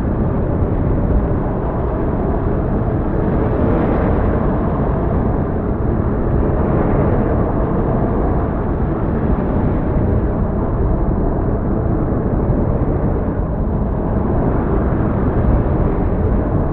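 A loud, steady, low rumble that holds level throughout.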